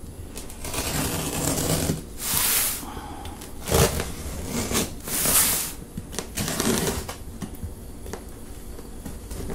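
Utility knife slicing through packing tape and plastic wrap on a cardboard box in several short cutting strokes, with a knock from the box being handled about four seconds in.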